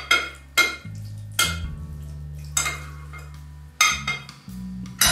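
A metal spoon clinking and scraping against a glass baking dish while spreading a layer of stewed onion, about seven sharp clinks at uneven intervals. Soft background music runs underneath.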